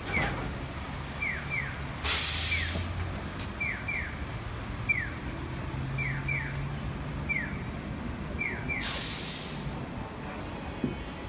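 Compressed air hissing out of the vintage tram No. 3005 twice, about 2 s in for over a second and again near 9 s, over a low steady motor hum. A pair of short falling electronic chirps repeats about every second and a half.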